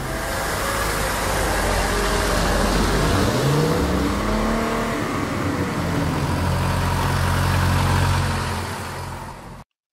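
Layered car engine sound effects: an engine revving, its pitch dipping and then rising about three seconds in, then holding a steady drone over a hiss. It cuts off suddenly near the end as playback stops.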